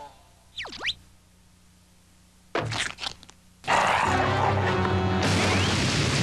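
Cartoon sound effects over music: a quick falling-then-rising whistle-like glide, then a short thump about two and a half seconds in, then a loud, sustained crashing commotion from a little before the four-second mark onward.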